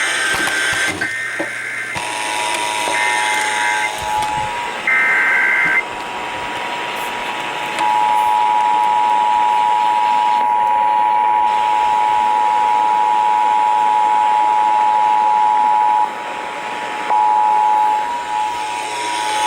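Emergency Alert System tones on the radio: three short bursts of the warbling digital header, then the two-tone attention signal held steady for several seconds, dropping out for about a second near the end and coming back. Radio hiss runs underneath.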